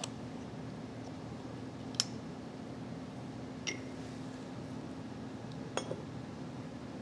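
Three light metallic clinks as a drum brake guide pin's spring retainer cap and spring are worked off with a tool, over a steady low hum.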